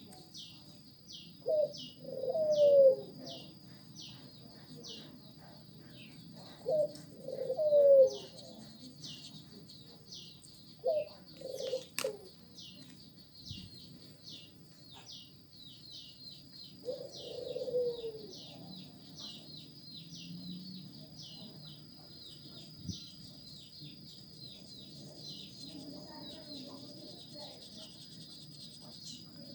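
A dove cooing in four short phrases, with a steady run of thin, high chirps behind it.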